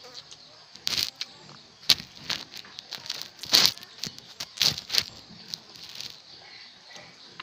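Irregular rustles, scrapes and light knocks very close to the microphone, about a dozen short ones, loudest around the middle: handling noise from hands moving near the phone while eating with the fingers.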